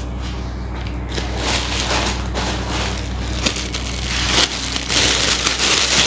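Close rustling and crackling handling noise, growing louder over the stretch, over a steady low hum.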